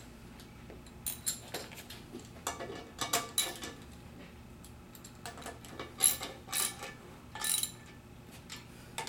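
Socket ratchet clicking in short runs of quick clicks, several times, as the bolts holding a replacement hydraulic pump cylinder to a barber chair's steel base are tightened down.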